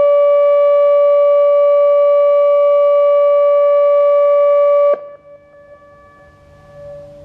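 ATI HPSS-32 electronic warning siren sounding a steady alert tone, which cuts off abruptly about five seconds in at the end of its four-minute alert. After it stops, several other sirens are heard faintly in the distance, each holding a steady tone at its own pitch.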